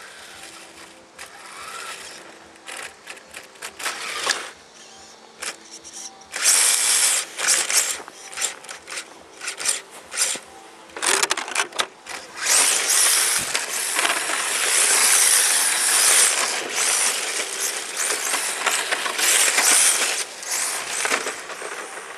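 HPI Sprint 2 RC drift car's hard drift tyres scrubbing and sliding on rough asphalt, a gritty hiss in loud, uneven bursts that become much louder and more continuous about six seconds in.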